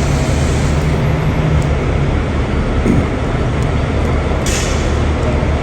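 A large vehicle engine idling with a steady low rumble, and a short hiss near the end.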